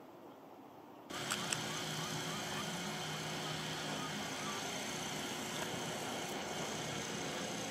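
Steady traffic-like street noise that cuts in abruptly about a second in, with a couple of sharp clicks as it starts, after a quieter first second.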